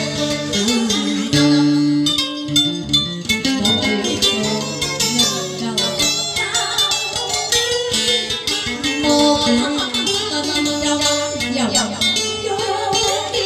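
Instrumental music with plucked strings and light percussion, playing as a break between sung lines of a Vietnamese ballad.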